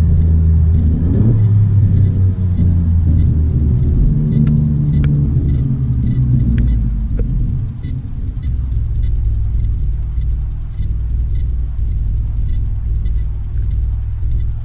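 Alfa Romeo Giulia Quadrifoglio's 2.9-litre twin-turbo V6 heard from inside the cabin under hard driving. The engine note rises in pitch about a second in, then eases off and goes quieter around the middle.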